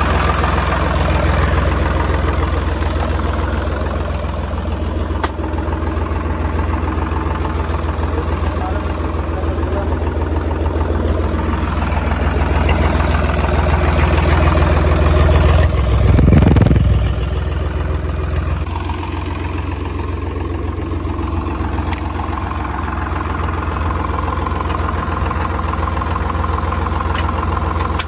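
Swaraj 742 NXT tractor's diesel engine idling steadily, with a brief louder surge a little past halfway.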